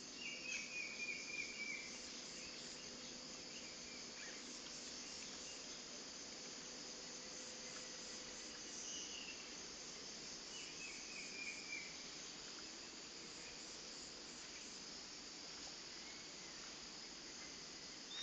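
A steady high chorus of crickets and other insects, with a bird giving two short, falling chattering calls: one just after the start and one about ten seconds in.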